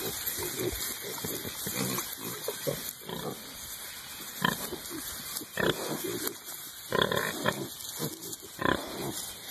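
Hereford piglets grunting, with several short louder calls in the second half.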